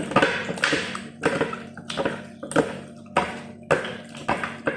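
Raw chicken pieces squeezed and turned by hand on a ceramic plate, working in a fish-sauce marinade: wet slaps and squelches about twice a second, over a steady low hum.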